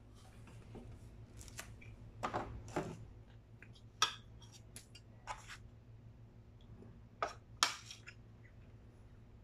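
Metal spoon scraping and clinking against a ceramic plate while eating, a string of short scrapes and taps with a few louder knocks, over a steady low hum.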